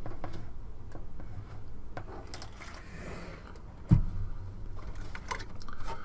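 Handling noise from a steel computer tower case being tilted and moved by hand: scattered light clicks and rattles, then a heavy thump about four seconds in as the case is set back down on the table.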